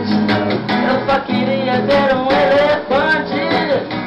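Acoustic guitar strummed while a boy sings, holding a long wavering note through the middle and sliding up and down on the notes that follow.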